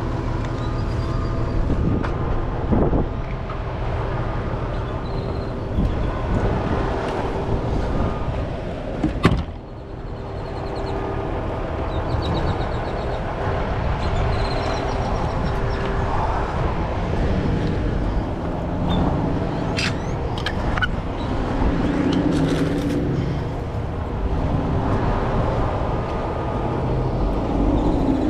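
Vehicle engine running steadily with a low rumble, and a single sharp knock about nine seconds in.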